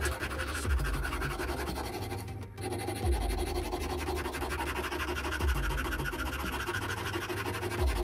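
Small hand file rasping in repeated strokes along the edge of a miniature carbon-steel sword blade, with a low thump about every two and a half seconds.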